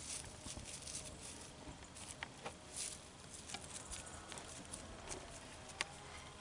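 Leaves and brush rustling in gusty wind, with scattered light crackles and sharp ticks.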